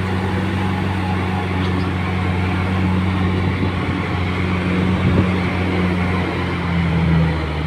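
Vehicle engine running steadily under load on an uphill off-road climb, a constant low hum; the engine note dips slightly near the end.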